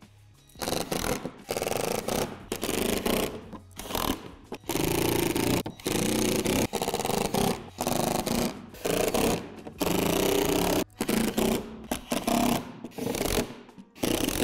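Cordless drill driving screws through a clear plastic window into a plastic shed door panel, running in many short runs that start and stop.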